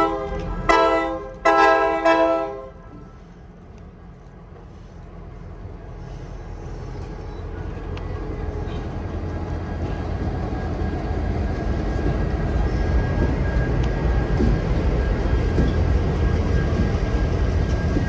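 Locomotive air horn sounding three blasts, the last the longest, ending about three seconds in. Then the low rumble of the train rises steadily as it approaches.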